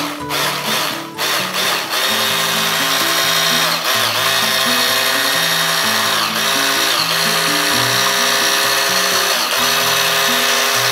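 Handheld stick blender with a whisk attachment running steadily as it whips cream in a glass bowl, its motor pitch dipping briefly a few times. Background music plays underneath.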